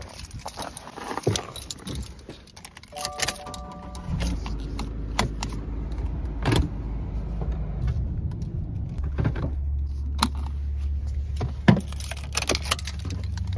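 Keys jangling and clicking as someone settles into a car. A short electronic chime from the car sounds about three seconds in. Then the engine starts and idles with a steady low hum.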